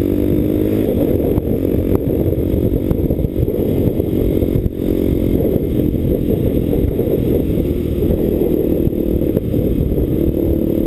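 A vehicle engine running under way, its pitch holding fairly steady, with a rough low rumble beneath.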